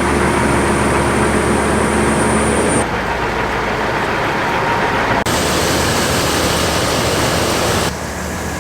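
Heavy machinery engine running steadily, heard as a continuous rumble with a faint hum. The sound changes abruptly three times: about three seconds in, about five seconds in, and near the end.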